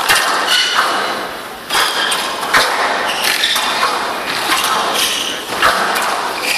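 Squash rally: the ball is struck by rackets and smacks off the court walls about once a second, with short squeaks of shoes on the court floor, echoing in a large hall.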